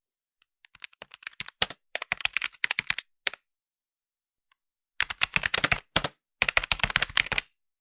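Typing on a computer keyboard: fast runs of key clicks that stop for about a second and a half near the middle, then start again in two quick bursts.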